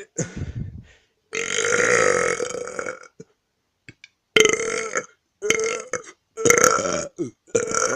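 A boy burping over and over: a short burp, then a long drawn-out one of nearly two seconds, then after a pause a quick run of four or five short burps about one a second.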